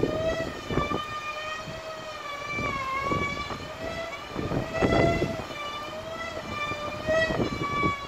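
Traditional Bermuda kite's hummer droning loudly in flight: one buzzing tone with many overtones that wavers slowly up and down in pitch. Gusts of wind rumble on the microphone, strongest about five seconds in.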